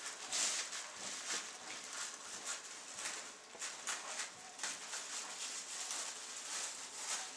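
Scissors cutting through a burnt plastic trash bag, with the plastic crinkling and rustling in short, irregular crackles.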